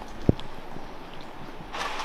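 Rain falling on a gravel puddle: a soft hiss with a few faint drop ticks and one short low thump about a quarter second in. Near the end a louder, steady rain hiss cuts in.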